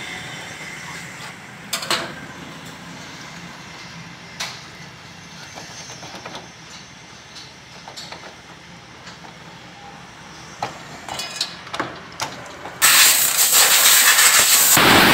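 Scattered light clicks and taps from handling and brushing a motorcycle carburetor in petrol over a metal bowl, then near the end a compressed-air blow gun starts with a loud, steady hiss as the carburetor is blown clean.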